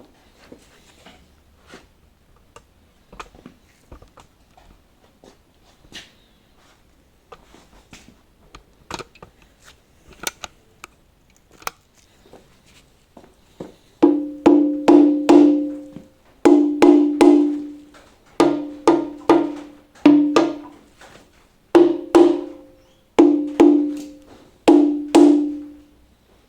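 Repeated hammer strikes on a metal part of a Holden 253 V8 being torn down, each strike ringing at a steady pitch, in quick groups of two to four, starting about halfway in. Before that, only faint scattered clicks of tools.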